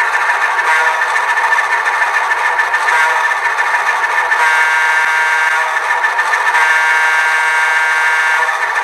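Alco S1 diesel switcher sound from an ESU LokSound Select Micro decoder, the engine idling steadily through the model's small speaker, thin with no deep bass. Two brief higher tones sound over it, about four and a half and six and a half seconds in.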